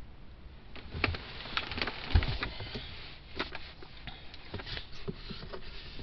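Irregular clicks and scrapes of a hand tool worked behind a Mercedes-Benz steering wheel, loosening the bolt that holds the driver's airbag, with one dull thump about two seconds in.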